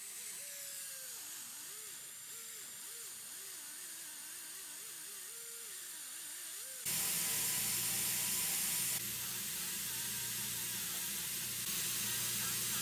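Slow-speed dental handpiece spinning rubber composite polishers against a composite restoration, a whir whose pitch wobbles up and down as the polisher is pressed on and eased off the tooth. About seven seconds in it turns abruptly louder and hissier with a steady low hum, and its level steps down and back up twice more.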